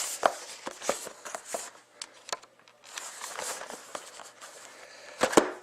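A trading-card box and its packaging being handled and opened by hand: cardboard and wrapper rustling and rubbing, with many small clicks and a louder knock near the end.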